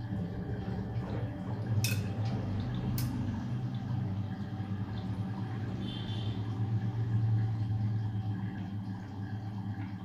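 LG DirectDrive front-loading washing machine tumbling a small load during the wash: a steady low hum with clothes and water sloshing in the drum, and two sharp clicks about two and three seconds in.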